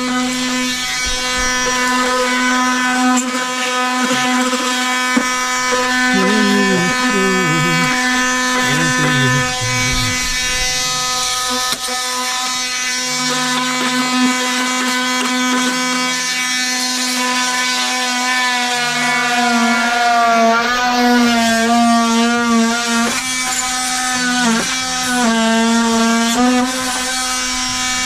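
Milwaukee cordless oscillating multi-tool running with a steady buzz as its blade trims cured expanding foam along a timber door lining. Its pitch dips and wavers several times in the second half as the blade bites into the foam.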